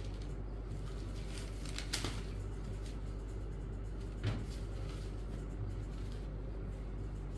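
A cotton saree being laid out and smoothed by hand on a wooden table: two brief handling sounds, about two seconds in and again about four seconds in, over a steady low hum.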